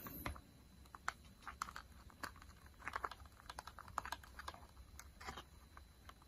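Faint, scattered small clicks and crackles of a flexible clear plastic texture sheet being bent and peeled away from a slab of soft polymer clay.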